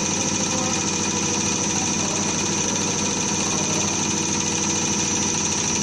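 CRS708D common rail diesel test bench running steadily, its drive motor turning the high-pressure pump while a common rail injector is tested. The running carries a constant high whine and does not change.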